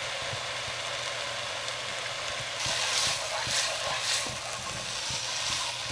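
Meat searing in oil in a frying pan over high heat, sizzling steadily. From about two and a half seconds in, a wooden spoon stirs the pieces, and the sizzle swells with each stroke, about twice a second.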